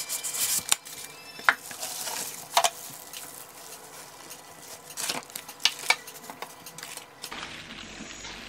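Unboxing handling noise: the flaps of a cardboard box and a polystyrene foam packing insert rustle and scrape, and plastic wrap crinkles, with a few sharp knocks and clicks at irregular moments.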